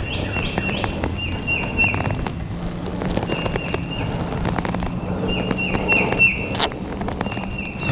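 A small songbird singing phrases of fast, short high notes, about six a second, over a background of crackling rustles.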